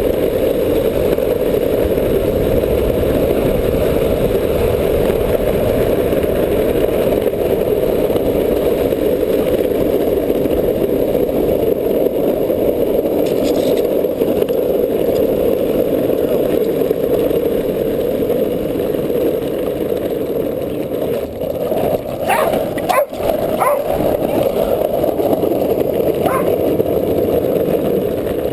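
Skateboard wheels rolling over an asphalt street: a loud, steady rumble. About three-quarters of the way through, a few short sharp sounds cut in briefly.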